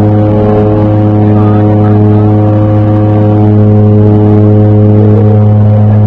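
Small propeller plane's engine and propeller droning steadily at climb power just after takeoff, heard from inside the cabin: one low, unchanging hum with overtones.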